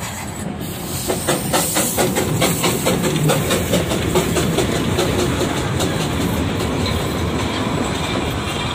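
Darjeeling Himalayan Railway saddle-tank steam locomotive and its coaches passing close by at low speed: a run of regular beats, about four a second, for the first few seconds as the engine goes past, then a steady rumble of the coaches rolling by.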